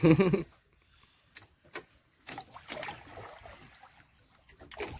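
Small waves slapping and trickling against the hull of an outrigger fishing boat, with a few light knocks and clicks.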